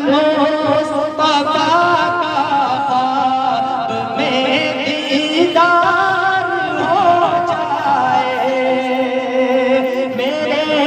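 A naat sung by a singing voice: long held notes with wavering, ornamented melismatic turns, in a Middle Eastern-style melody.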